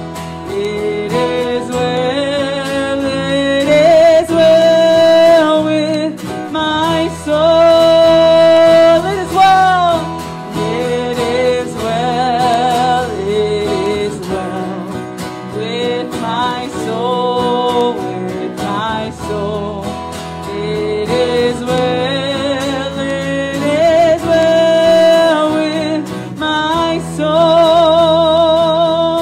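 A woman singing a song to acoustic guitar accompaniment, holding long notes, some with vibrato.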